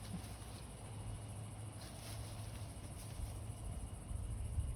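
Outdoor ambience: a steady high-pitched insect chorus of crickets, over a low rumble of wind on the microphone, with a few faint scratches or ticks about halfway through.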